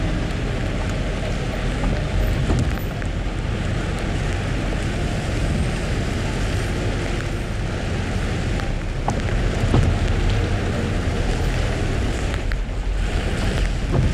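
A car driving in the rain: a steady rumble and hiss of tyres on a wet road and falling rain.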